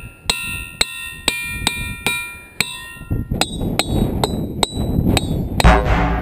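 A boulder in a field of ringing rocks being struck over and over with a hammer, about two to three blows a second. Each blow gives a bell-like ring of several steady tones that sustains between strikes. In the second half the ring goes higher amid rougher low noise, and a loud low rumble comes near the end.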